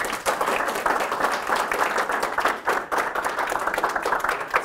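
A small audience applauding, many hand claps running together into a steady clatter.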